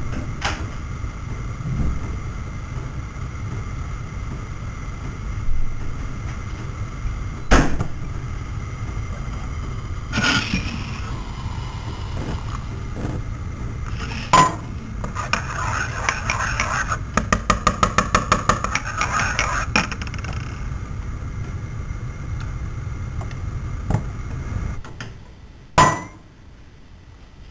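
Kitchen noises: a steady low hum with scattered sharp clinks and knocks of dishes and utensils, and a rapid run of even ticks a little past the middle. The hum stops shortly before the end, just ahead of a last loud clink.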